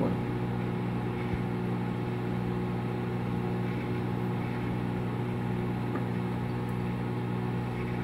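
Danby Designer microwave oven running: a steady electrical hum with fan noise. There is no crackling or sparking from the small ball of aluminium foil inside.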